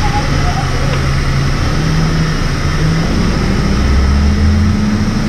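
High-pressure water hoses spraying down the side of a curtain-side truck trailer, a steady hiss, over a low machine hum that steps up in pitch a few times.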